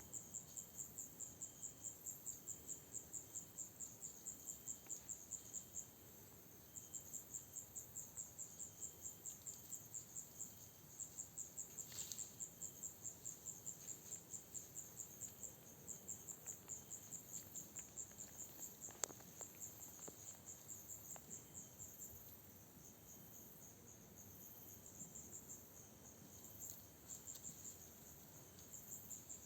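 Crickets chirping in a steady pulse, about four chirps a second, in runs broken by short pauses. A single sharp click comes about two-thirds of the way through.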